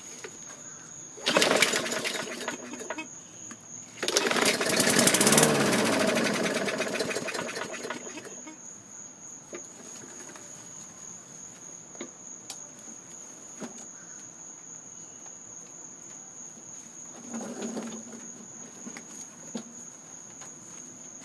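A 2013 Murray push mower's 4.5 hp Briggs & Stratton engine being pull-started: a short first pull, then a second pull on which it fires on starting fluid, runs a few seconds and winds down to a stop, and a weaker pull near the end. It only runs on the starting fluid, the sign of a carburetor that needs cleaning. Crickets chirp steadily throughout.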